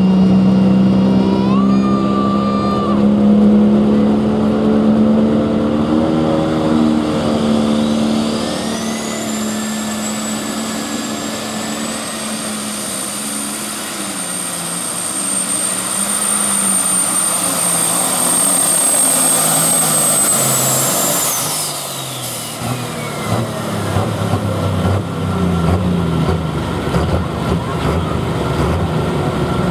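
Turbocharged diesel pulling tractor making its pull under full load: the engine runs hard while a high turbocharger whine climbs and holds as a steady scream, the engine note slowly sagging as the sled bears down. About two-thirds of the way through, the whine falls away as the run ends. Afterwards a diesel engine runs unevenly at lower revs with short blips.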